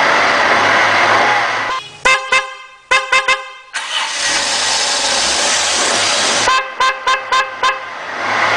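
Car horn honking: long sustained blasts broken by runs of short toots, a single toot about two seconds in, three quick ones soon after, and about five in quick succession near the end.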